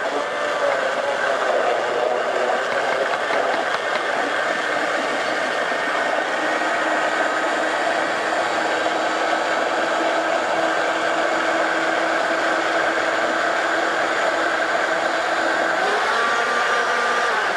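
Countertop blender motor running steadily, puréeing vine-ripened tomatoes to a thin liquid. Its pitch shifts a little shortly before the end.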